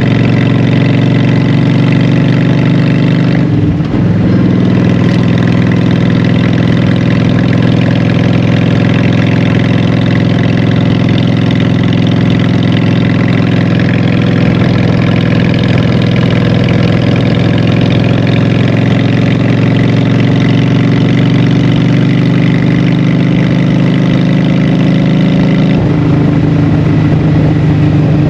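Honda Shadow 750 V-twin running through Vance and Hines Short Shots exhaust pipes while under way. The note breaks briefly about four seconds in, then slowly climbs in pitch, and changes abruptly near the end.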